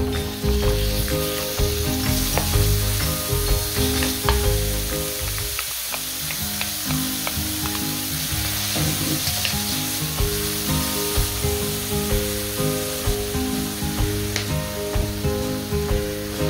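Minced beef and pork sizzling as it stir-fries in a wok, with a wooden spatula stirring and scraping in scattered light taps. Background music plays underneath.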